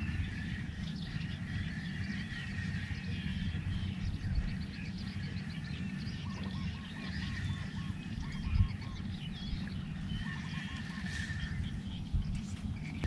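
Wind rumbling on the microphone over an open marsh, with birds calling in the background, including a quick run of repeated notes about six seconds in and a shorter one near eleven seconds.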